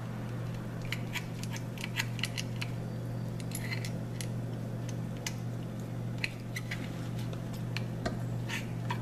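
Scattered small clicks and wet ticks from a gloved hand working through a cut-open lionfish's gut, over a steady low hum.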